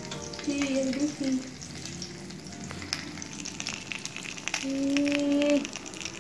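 Beef burger patty with cheese slices sizzling in oil in a frying pan, with wooden and metal spatulas scraping and clicking against the pan as the patty is lifted. A steady pitched tone sounds twice, about a second each, the second one near the end and the loudest.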